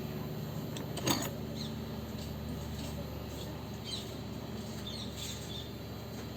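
Hot air rework gun blowing steadily on a phone charging board while the old charging jack is being desoldered, with a sharp click about a second in and a few faint small ticks.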